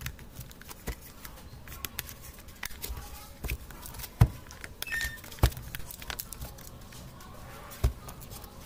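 Handling noise from a mini projector's plastic housing being fitted together by hand: scattered clicks and taps with a few louder knocks, the loudest about four and five seconds in. Near the end, a knock as the housing is set down on the table.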